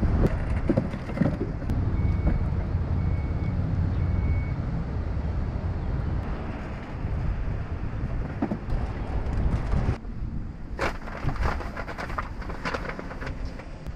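Low vehicle rumble with three short, evenly spaced electronic beeps a couple of seconds in. About ten seconds in the rumble drops away and a run of clattering, rustling noises follows.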